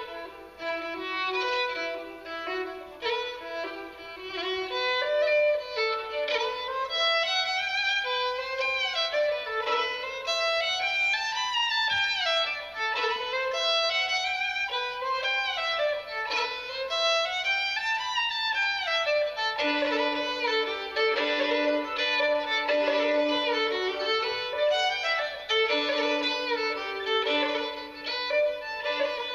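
Solo fiddle playing a traditional Irish or Scottish dance tune, bowed in quick runs of notes. About two-thirds of the way through, a lower held note begins to sound under the melody.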